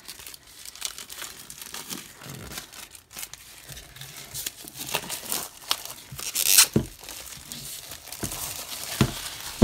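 Thick plastic shrink wrap being torn and peeled off a hardcover book, crinkling irregularly, with a louder burst about six and a half seconds in and a short knock near the end.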